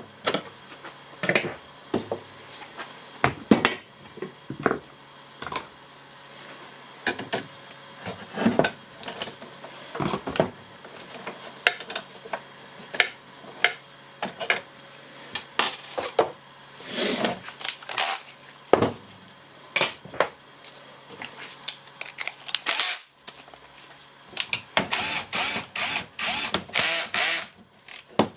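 Clicks, knocks and rattles of a cordless circular saw's plastic housing, screws and hand tools being handled as the saw is taken apart, with a run of short, louder bursts near the end.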